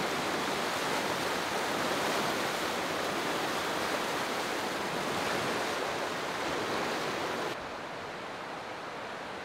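Snowmelt-swollen mountain river in spring flood, rushing loud and steady through whitewater rapids and running far too high to wade. About seven and a half seconds in, the rush drops to a softer, more distant level.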